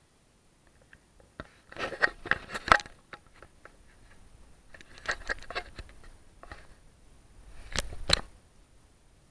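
Crunching, scraping footsteps on gravel close to the microphone, in three short clusters about two, five and eight seconds in; no drone motors are running.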